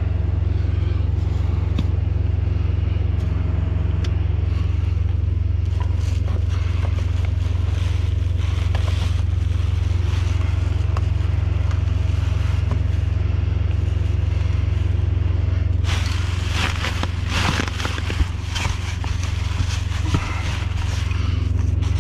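A vehicle engine idling steadily throughout. For several seconds near the end, items are scraped and rustled as they are shifted about.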